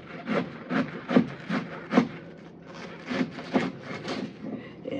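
Large kitchen knife slicing through raw cabbage leaves on a cutting board in a run of short strokes, about two a second.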